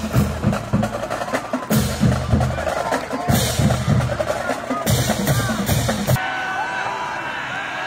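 Marching band drumline playing a fast, driving percussion cadence of snare and bass drums, which cuts off abruptly about six seconds in and leaves the crowd's chatter.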